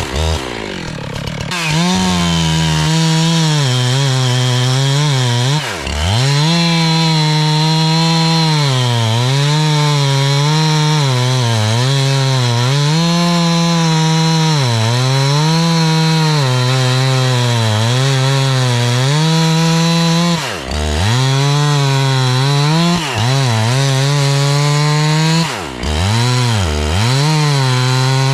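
Two-stroke Jonsered chainsaw cutting wood at full throttle, its pitch sagging and recovering again and again as the chain bites in, with a few brief drops in revs.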